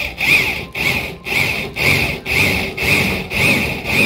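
Electric drill run in short pulses, about two a second, as a twist bit cuts a hole through a car's sheet-metal roof. The motor whine rises and falls with each pulse.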